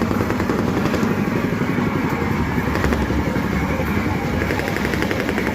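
A loud, steady engine rumble running without a break.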